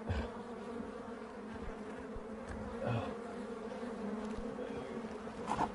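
Many bees buzzing in a steady, droning hum, with a few faint knocks.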